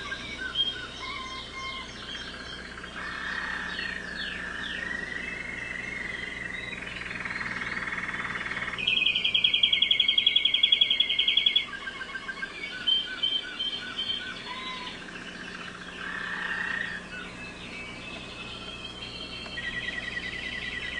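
American Singer canary singing a long, varied song of trills, rolls and gliding phrases, the loudest a fast, even trill of about three seconds near the middle.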